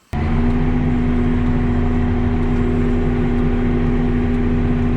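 A vehicle engine running at a steady speed: a constant drone that cuts in suddenly just after the start and holds without rising or falling.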